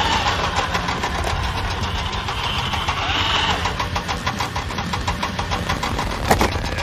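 A vehicle engine idling with a rapid, even chugging. A single sharp click comes near the end.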